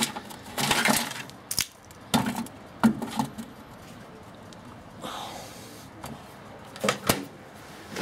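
Clattering and knocking as a 6-volt Duracell lantern battery is set down in a microwave oven's metal cavity among tangled light-string leads, with several sharp knocks and rustles in the first few seconds. A single thump comes near the end as the microwave door is shut.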